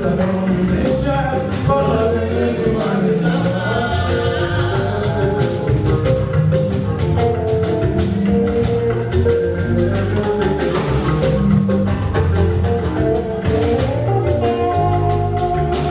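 Live band music with a steady, driving bass line, keyboard or mallet-like melody and dense drumming, in an instrumental stretch between sung verses.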